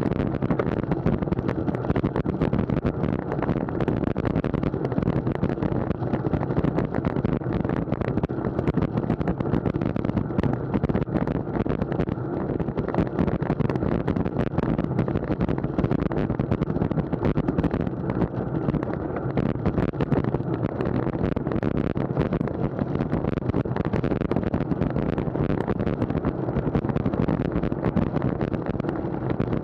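Wind rushing over an action camera's microphone on a moving road bike, a steady buffeting noise with many small ticks and rattles mixed in.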